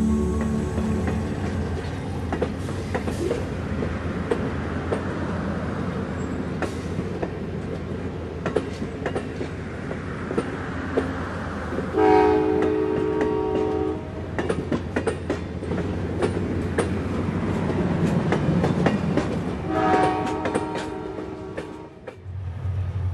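A train running, its wheels clicking over the rail joints, with the horn sounding twice: a blast of about two seconds about twelve seconds in, and another about twenty seconds in.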